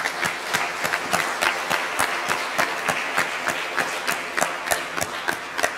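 Audience applauding, a dense patter of many hands clapping that eases off near the end.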